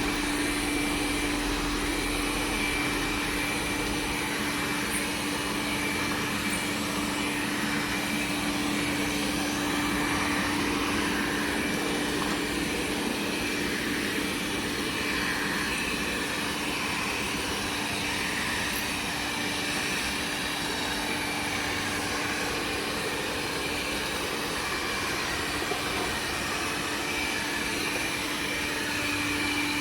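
Xiaomi Mijia 1C robot vacuum running steadily on a second pass over thick dust, a constant hum under an even hiss.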